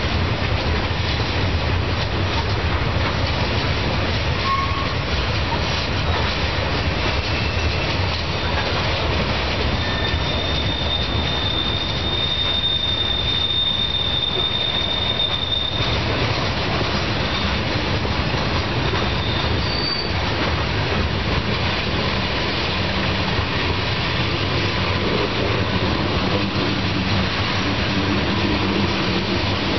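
Freight train's boxcars and tank cars rolling past, a steady rumble of steel wheels on rail throughout. In the middle, a steady high-pitched wheel squeal is held for about six seconds.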